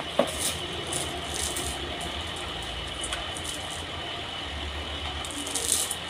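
Sawmill machinery running steadily with a low hum and a thin high whine, a sharp knock just after the start, and a few short hissing bursts, the loudest near the end.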